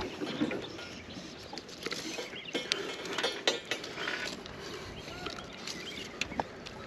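Handling noise from a flathead catfish and a trotline being worked in a small boat: irregular small clicks, knocks and rustles.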